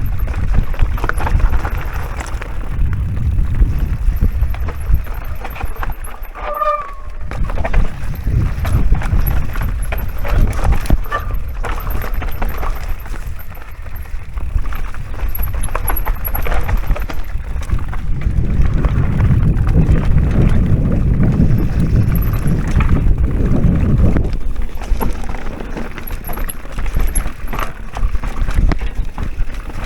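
Electric mountain bike being ridden along a dirt trail: steady wind buffeting on the action camera's microphone over tyre rumble and the rattle and clatter of the bike over rough ground, with a brief squeak about seven seconds in.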